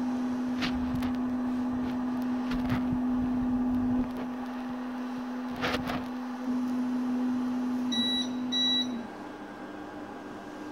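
EPAX X1 resin 3D printer's Z-axis stepper motor running with a steady hum as it lowers the build platform at the start of a print, stopping about nine seconds in. Two short high beeps sound just before it stops.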